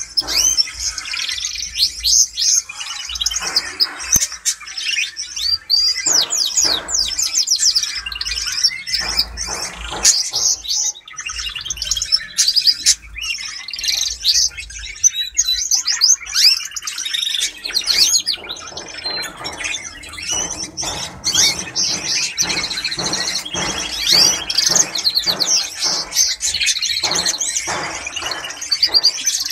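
Female canary singing: a long run of fast trills and chirps with short breaks.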